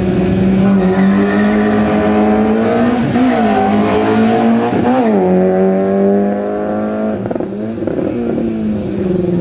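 Small hatchback race car's engine held at high revs on a slalom course. Its note rises and falls sharply about three seconds in and again near five seconds, and the sound drops somewhat in the last couple of seconds as the car pulls away.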